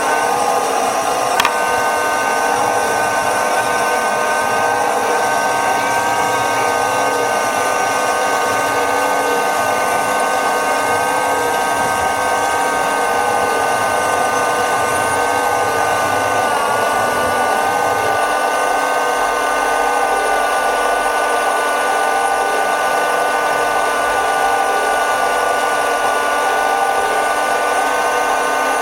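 Small electric motors and gearboxes of radio-controlled model farm machines whining steadily, with one sharp click about a second and a half in.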